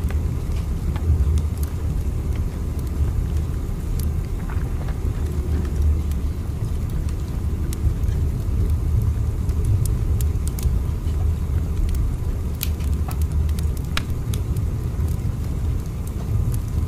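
Steady low rumble of a train running, with faint scattered clicks over it.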